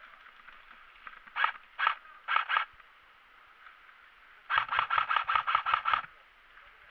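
Airsoft AK-47 replica firing: two single shots, a quick pair, then a full-auto burst of about nine shots in a second and a half.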